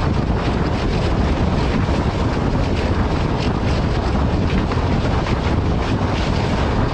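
ALCO diesel locomotive running under way, its engine rumble mixed with the noise of the moving train and heavy wind buffeting the microphone.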